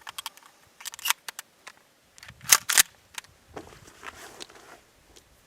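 Sharp mechanical clicks and clacks from a Winchester Model 1300 pump-action 12-gauge shotgun being handled: a quick run of clicks about a second in, then two louder clacks about a third of a second apart midway.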